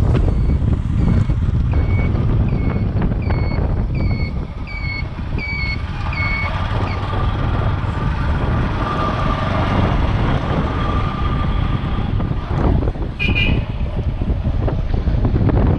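Wind rushing over the microphone with vehicle road noise on a motorcycle ride. For the first seven seconds or so, a series of short beeps sounds about every 0.7 seconds. About thirteen seconds in there is one brief, higher beep.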